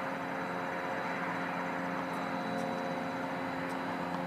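Steady background hum and hiss that holds level throughout, with several constant tones under it and a few faint ticks.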